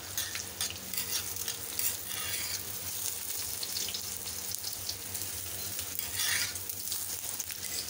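Square paratha frying in oil on a flat iron tawa: steady sizzling and crackling, with a few louder crackles, and now and then a metal spatula scraping the griddle.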